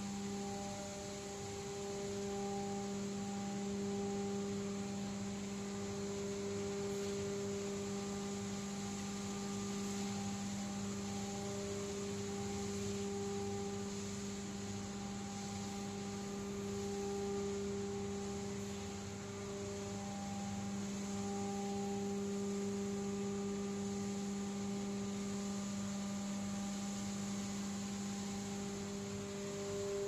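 Steady electric hum of the running motors and machinery of a feed pellet production line: a low tone with a few higher tones above it, holding level with no breaks.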